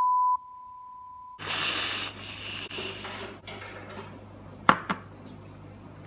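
A steady high test-tone beep over colour bars, which cuts off about a second and a half in. Then about two seconds of spraying hiss from an aerosol whipped-cream can, and two sharp clicks a moment apart near the end.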